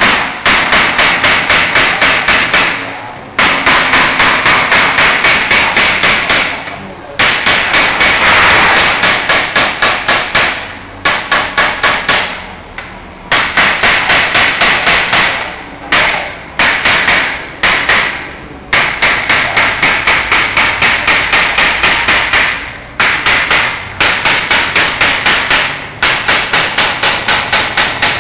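Small hand hammer tapping rapidly on a long golden metal decoration strip as it is chased into relief, about five ringing metallic taps a second in runs of a few seconds with short pauses between.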